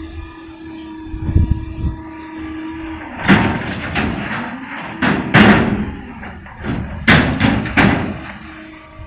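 Front-loader garbage truck emptying a container: a steady hum from the truck, then a run of loud bangs and clanks about three, five and seven seconds in as the container is shaken out over the hopper.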